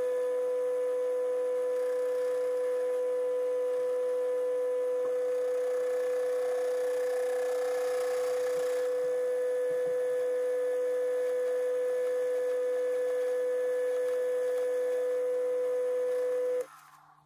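Lathe running with a steady, high, pure-sounding whine that stops abruptly near the end.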